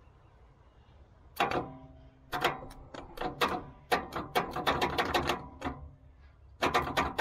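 The starter of a 6BT Cummins diesel cranks the engine over in short, irregular bursts through a makeshift starter connection, spinning it to blow water and gunk out of the cylinders after it sat submerged. The cranking starts about a second and a half in, stops briefly near the end, then starts again.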